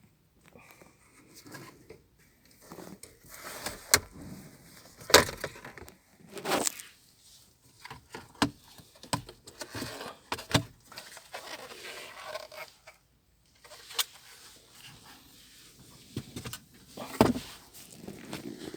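Plastic dashboard trim and a climate control panel being pried and handled, with scraping and a string of sharp plastic clicks and knocks, the loudest about four and five seconds in.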